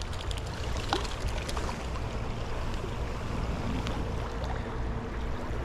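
Mountain trout stream rushing steadily, with a few faint clicks over the water noise.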